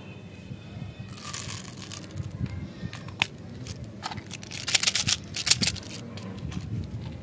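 Hands handling plastic candy toys: rustling, then a burst of sharp plastic clicks and rattles about five seconds in, as the cap of a plastic umbrella-shaped candy dispenser is twisted.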